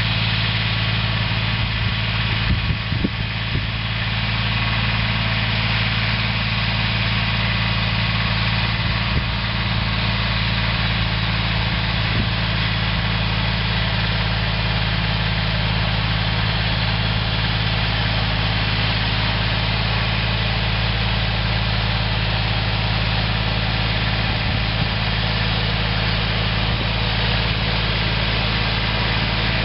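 Yanmar YM169 compact diesel tractor's engine running steadily at low speed while it digs along a potato row. A few short knocks come about two to three seconds in.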